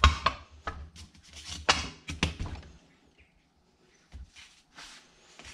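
Aluminium motorcycle engine casings being picked up, turned over and set down on cardboard: a cluster of knocks and scrapes in the first three seconds, then a few soft rustles.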